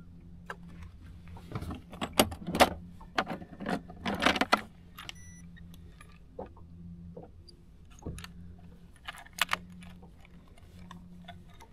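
Small hard objects clicking and rattling as fishing gear is handled by hand, in a cluster of bursts about two to four and a half seconds in and a shorter one around nine seconds, over a steady low hum.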